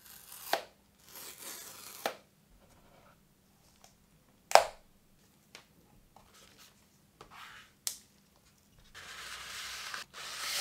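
Cardboard phone box being opened by hand: the seal along its edge scraped and torn, scattered rustles and sharp knocks, the loudest about four and a half seconds in. Near the end, a cardboard accessory sleeve slides open with a long scraping rustle.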